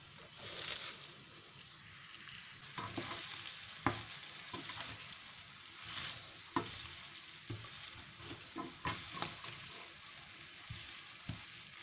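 Cabbage leaves frying in hot oil in a frying pan with a faint sizzle, stirred with a plastic slotted spatula and a wooden spoon that knock and scrape against the pan now and then.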